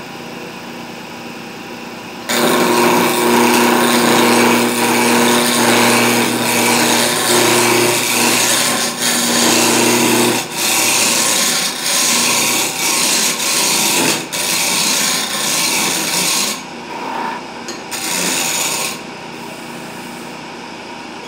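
Electric wood lathe running while a turning tool cuts into a spinning wooden spindle, rounding its middle. The loud, rough cutting starts about two seconds in, runs on with a steady hum, then comes and goes in separate passes, and eases back to the lathe running on its own near the end.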